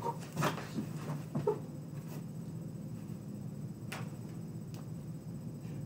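Light thumps and scuffs of a person dropping onto a rug and starting push-ups in the first second or so, over a faint steady low hum, with a few soft clicks later on.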